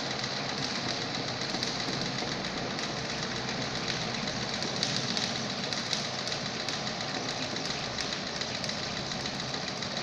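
Treadle-driven sewing machine running steadily, with a fast, even clatter from the needle mechanism as fabric is stitched.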